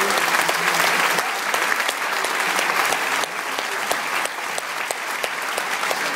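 Concert audience applauding, a dense, steady clapping that eases off a little about three seconds in.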